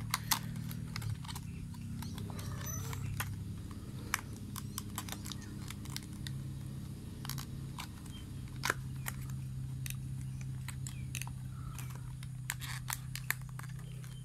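Stiff clear plastic lure packaging being handled and prised open by hand: scattered clicks and crackles of plastic, over a steady low hum.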